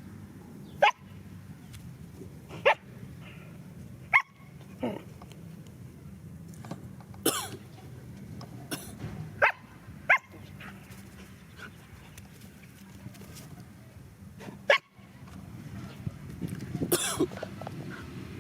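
A dog barking in short, sharp single barks, about nine of them at uneven intervals.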